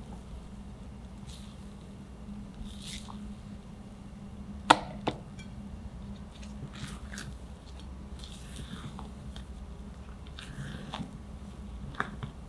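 Chocolate sponge batter being mixed with meringue in a glass bowl by hand: soft swishing and squishing as it is stirred and folded, over a low steady hum. Two sharp knocks come about five seconds in, and another near the end.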